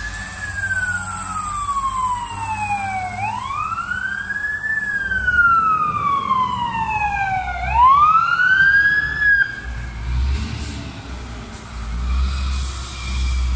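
Fire engine siren wailing in slow sweeps, each rising quickly and then falling away slowly, about two full cycles before it cuts off suddenly about nine seconds in. A low engine rumble follows as the truck approaches.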